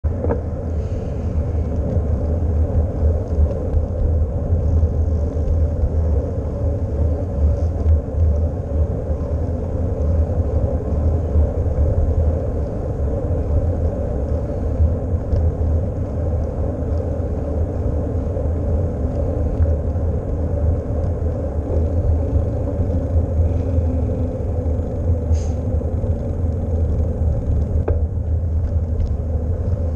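Wind buffeting a GoPro's microphone on a moving bicycle: a steady low rumble, with the hum of tyres rolling on asphalt under it. A couple of faint ticks in the last few seconds.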